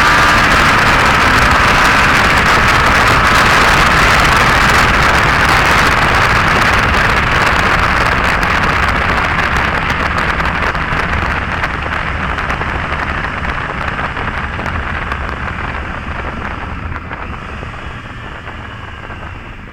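Heavy wind noise rushing over the microphone of a rider moving at road speed, loud and steady at first, then dying down gradually through the second half.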